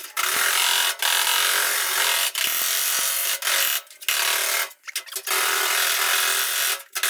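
A handheld power tool running in repeated bursts of about a second or so, each cut off briefly before starting again, with a steady motor tone under the noise.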